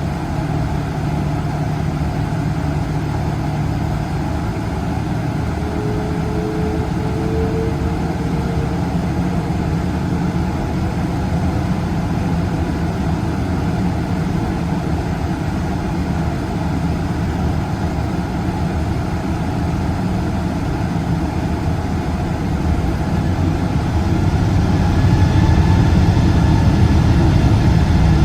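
Rolls-Royce Trent 800 turbofan of a Boeing 777-200ER running with a steady low rumble. About 24 seconds in it grows louder and a rising whine sets in as the engine spools up.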